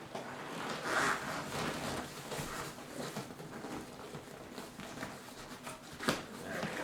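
Seat cover being pulled and worked onto a car seat by hand: irregular rustling and rubbing of the upholstery, with a sharp tap about six seconds in.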